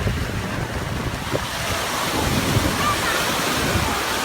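Ocean surf washing onto the beach, with wind buffeting the microphone in low rumbles.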